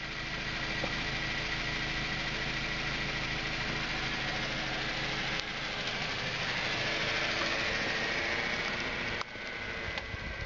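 Mini hatchback's four-cylinder engine running at low, steady revs as the car moves off. The sound drops abruptly about nine seconds in.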